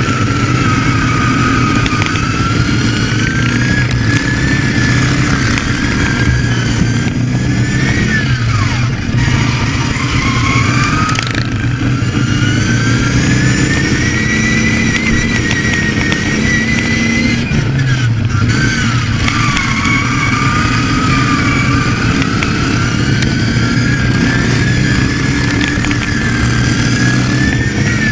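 Racing ride-on lawn mower engine running hard at close range. Its pitch climbs slowly, then drops suddenly, several times over.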